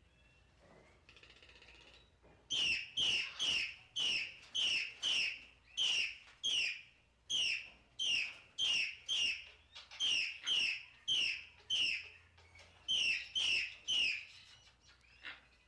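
An animal's calls: a quick series of short, high chirps, each falling in pitch, about two a second. They start after a couple of seconds of faint hiss and stop shortly before the end.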